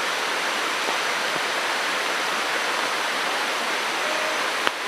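Steady rushing hiss of water, with one sharp click near the end.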